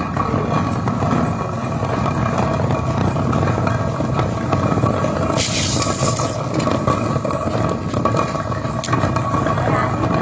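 Flour mill running: a steady grinding rumble with scraping and a faint steady hum, and a brief hiss about five and a half seconds in.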